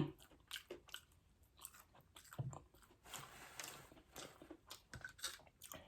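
A person chewing and biting into crispy fried chicken wings, close to the microphone: a run of short, irregular crunches.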